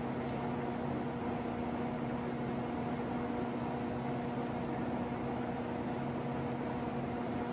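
24-inch ventilation fan running steadily and blowing air into an 84-foot flap duct: a constant low hum with overtones over a rushing of air.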